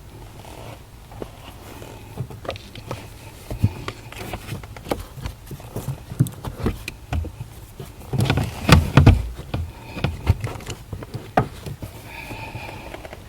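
Irregular knocks and clicks, thicker and louder about eight to nine seconds in, over a steady low hum.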